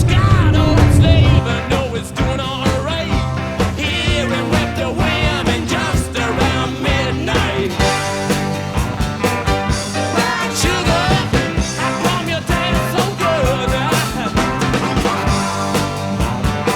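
Rock song with singing and a steady beat. A loud low rumble sits under the music for the first second and a half, then drops away.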